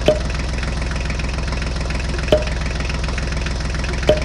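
Tractor engine idling steadily, a sound effect laid over the toy tractor, with three short clicks about two seconds apart.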